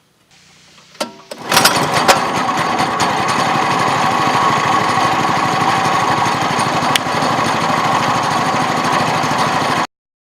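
Champion 196cc single-cylinder four-stroke engine, fitted with a new NGK BPR6ES spark plug, starting up about a second and a half in and running steadily and loudly, then cutting off abruptly near the end.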